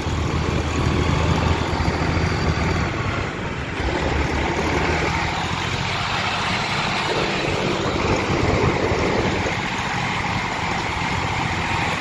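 New Holland T3.75 tractor's 75 hp common-rail diesel engine running steadily, heard from on board the tractor.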